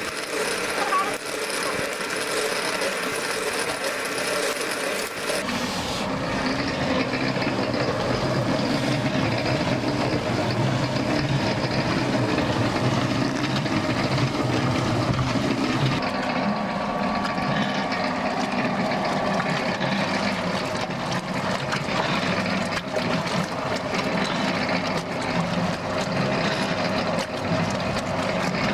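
Homemade concrete mixer running with a steady mechanical hum as it turns a batch of cement and water. The sound fills out lower about five seconds in and shifts again around sixteen seconds.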